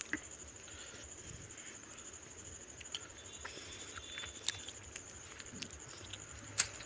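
Fingers mixing rice and fish curry on a plate: soft, wet, sticky rustling with a few sharp clicks, the loudest near the end.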